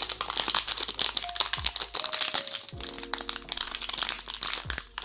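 Small plastic candy wrapper crinkling continuously as fingers twist and pick at a hard-to-open packet, over soft background music.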